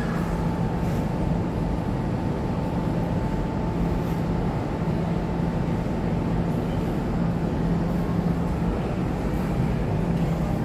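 Steady low rumble and hum of a shopping mall's background, with a faint steady tone running through it.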